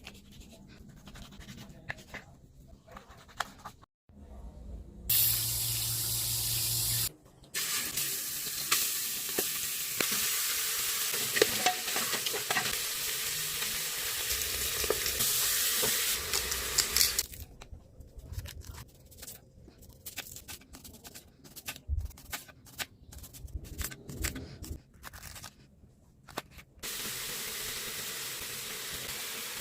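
Ribs frying in a hot pan: a steady sizzle broken by the clatter and scrape of a utensil stirring. The sound changes abruptly between loud sizzling stretches and a quieter stretch of scattered clicks and scrapes.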